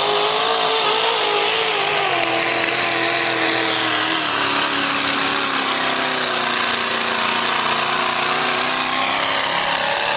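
Mud-bog truck's engine revved hard and held at high revs while it plows through a mud pit, the pitch easing slightly lower partway through.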